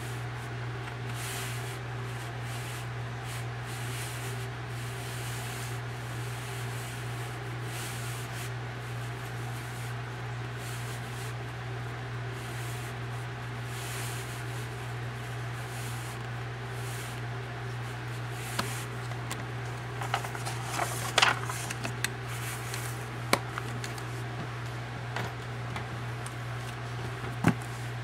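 A steady low hum, with scattered clicks, taps and rubbing beginning about two-thirds of the way in as a coin folder is handled by hand.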